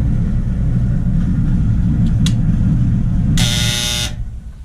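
Maytag DE7600 clothes dryer running with a steady low rumble and no squeal, its idler tension pulley freshly replaced. Near the end a short buzzing tone sounds for under a second and the running dies away.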